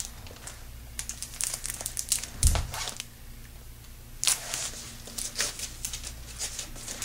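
Clear plastic brush packaging crinkling and rustling as makeup brushes are handled and taken out, with scattered small clicks, a longer rustle about four seconds in and a low thump about two and a half seconds in.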